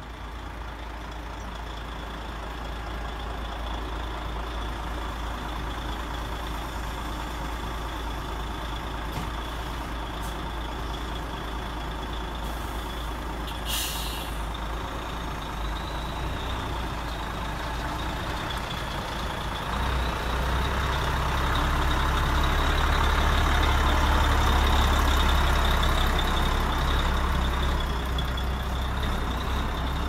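Radio-controlled model construction trucks running, their sound modules playing a diesel truck engine rumble over a steady high whine. A short hiss like an air brake comes about halfway through, and the engine sound grows louder about two-thirds of the way through.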